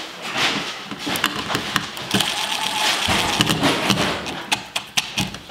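Cordless impact driver running in short bursts, with rapid clicking as it drives a mounting screw into a cut-in electrical box, trying to draw the box's tab tight against the back of the drywall.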